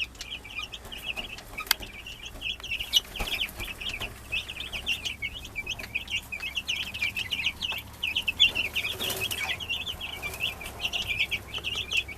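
A brooder full of two-week-old broiler chicks peeping without pause, many short high chirps overlapping, with a few clicks among them.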